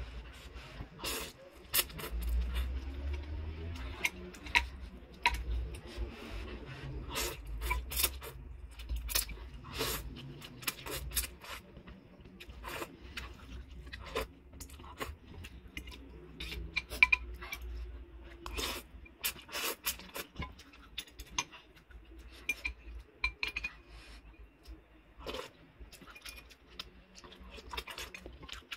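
Close-up eating sounds of instant noodles with boiled eggs: slurping noodles and broth, and a metal fork and spoon clinking and scraping against the bowl in many short clicks.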